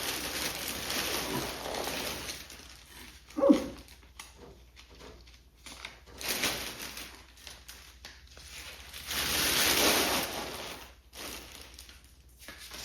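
Packaging being handled while a heated cat house is unpacked: rustling and crinkling in several bursts, with one brief, louder sound about three and a half seconds in.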